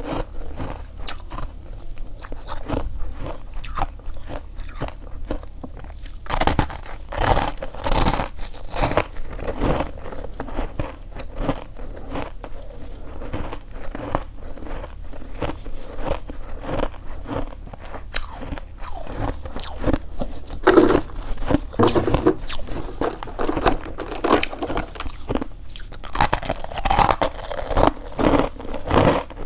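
Close-miked biting and chewing of freezer frost: dense, irregular crunching and crackling of packed ice crystals between the teeth, with heavier bursts of crunching as fresh bites are taken.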